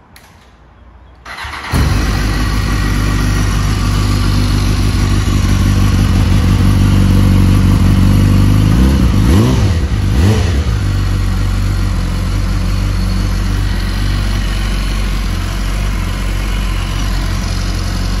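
A 2014 BMW HP4's inline-four engine is cold-started. The starter cranks briefly about a second and a half in, then the engine catches and settles into a steady idle.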